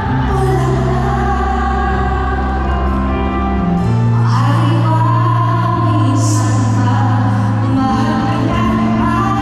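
Live concert music: singing over a band, with long held notes. The bass chord changes about four seconds in.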